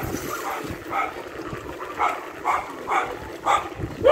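A dog barking repeatedly, a string of short barks about two a second.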